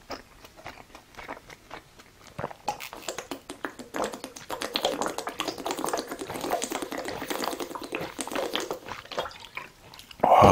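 Close-miked chewing of food: a rapid run of small crunches and wet mouth clicks, busiest in the middle stretch, with a louder bump right at the end.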